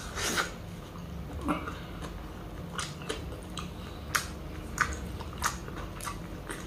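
Close-miked chewing of a mouthful of chicken sisig, with about eight sharp wet mouth clicks spread through it.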